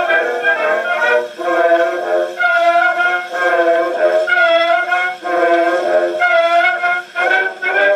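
A Reginaphone Style 246 playing an old phonograph record: a melody of long held notes with a thin sound and almost no bass.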